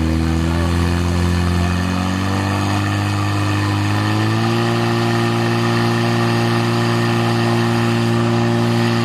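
Portable fire pump's engine running hard, stepping up in speed about two seconds in and again about four and a half seconds in, then holding a steady high pitch while it pumps water through the hoses.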